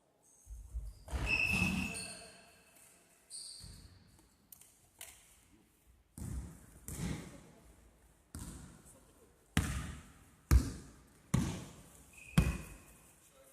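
A basketball bouncing on a gym floor: about a dozen separate bounces, roughly a second apart in the second half, each with a short echo in the hall. A few brief high squeaks come in between.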